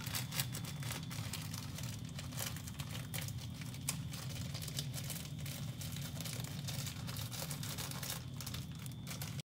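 Faint crinkling and crackling, a dense run of small clicks over a low steady hum.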